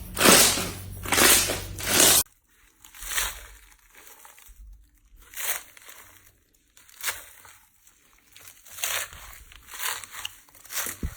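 Slime being pressed and squeezed close to the microphone, a series of crunching, crackling squishes. The first few are loud, then about two seconds in the sound drops suddenly to quieter crunches about once a second.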